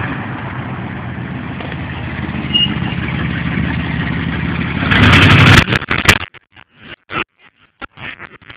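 Ford Bronco engine running through a custom true dual exhaust as the truck rolls up close. About five seconds in it gets much louder, then the sound breaks into choppy cut-outs as the overloaded phone microphone drops out.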